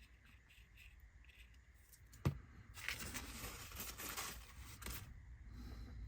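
A single sharp tap about two seconds in, then about two seconds of scratchy rustling, from small laser-cut window frames and a plastic glazing sheet being handled on the work surface.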